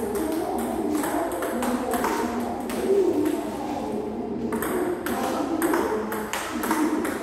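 Table tennis rally: the plastic ball clicks off the bats and bounces on the table in a quick, even rhythm of about two to three clicks a second. The rally is played with pimpled-rubber bats.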